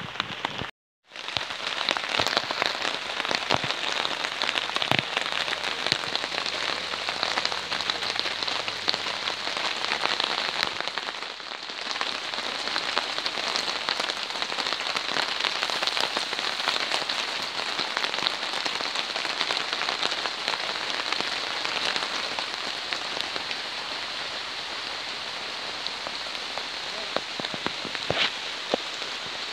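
Heavy rain hammering down on a camp tarp: a dense, steady patter of countless drops, briefly cut off about a second in.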